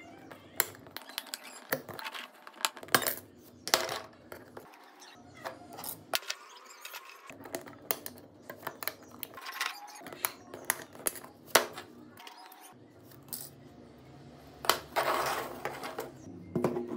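A thin metal pry blade levering and scraping the tin shield lids off a Samsung Galaxy phone's circuit board: irregular sharp metallic clicks and scrapes, with a longer scrape near the end.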